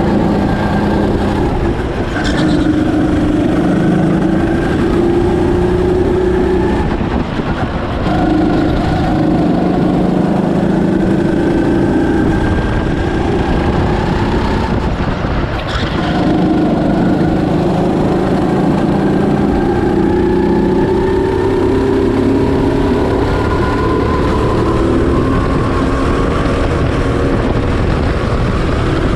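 Birel N35 rental go-kart's engine at speed, heard onboard: its note climbs steadily in pitch for several seconds at a time and drops back twice, about seven and fifteen seconds in, as the kart slows and picks up again. A sharp knock sounds about two seconds in and another around sixteen seconds.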